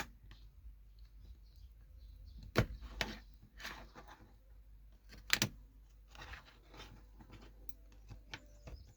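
Metal tweezers clicking and scraping against a Nokia 105's plastic housing and circuit board as the board is eased out of the phone. Scattered small clicks and scratches, the sharpest about two and a half, three and five and a half seconds in.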